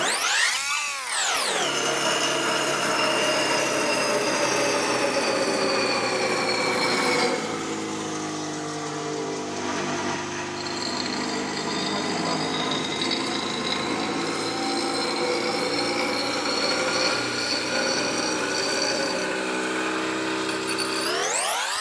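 Pedestal bench grinder running as a steel rocker-arm workpiece is held against its wheel: a steady motor whine with harsh grinding noise, a little quieter from about seven seconds in. A brief swooping rise and fall in pitch at the start.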